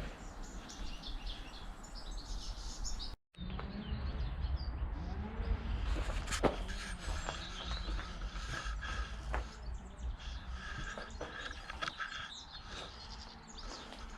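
Birds chirping over a low steady background rumble, with a few light clicks; the sound drops out briefly about three seconds in.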